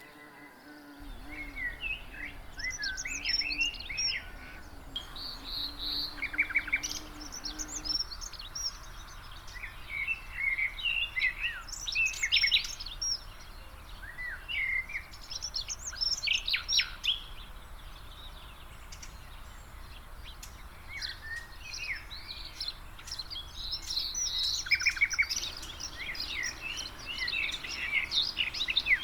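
Several small songbirds chirping and singing at once: short, overlapping high chirps and trills with no break, busiest near the end.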